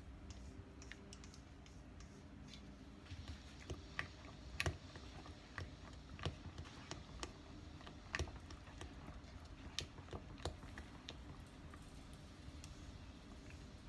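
Faint, irregular light clicks and taps of small hard objects, scattered over several seconds, over a low steady background hum.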